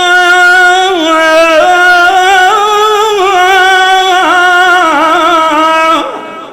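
A male reciter singing a long held, wordless vowel line of a Shia lament, with ornamented turns that waver up and down in pitch; it fades out near the end.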